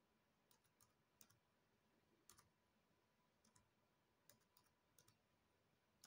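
Faint key clicks from a Dell Latitude E6420 laptop keyboard as a PIN is typed and confirmed: about eight separate key presses, irregularly spaced.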